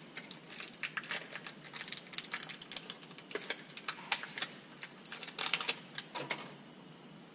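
Quick light clicks and crinkles of new connecting rod bearing shells and their wrapping being handled in gloved hands. The handling stops about six and a half seconds in.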